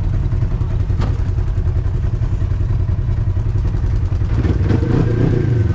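An off-road vehicle engine runs steadily while riding a trail, with a knock about a second in and the revs changing about four and a half seconds in.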